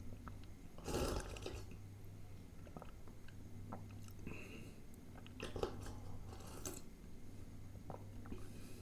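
Close-miked mouth sounds of a person sipping raita from a small steel bowl: a loud slurp about a second in, a few shorter slurps in the middle, with small wet mouth clicks and chewing between them.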